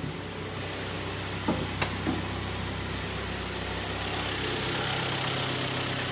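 Hyundai ix35's G4KD 2.0-litre four-cylinder petrol engine idling evenly and quietly after its rebuild for stuck, coked piston rings and a cold-start knock, with a few short knocks at about a second and a half in. The sound gets louder and hissier a little past halfway.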